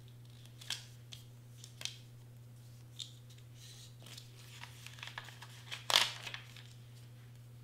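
Paper rustling and crinkling as a cardstock cutout is handled on an adhesive-backed sheet: a few sharp crackles, then a busier run with the loudest crackle about six seconds in as the cutout is worked off the sheet.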